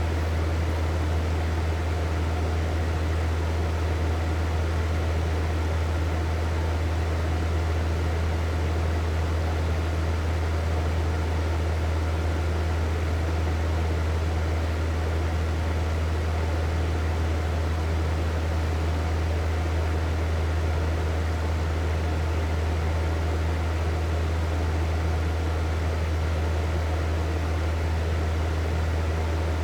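Hair dryer running continuously: a steady rush of air over a low motor hum, unchanging throughout.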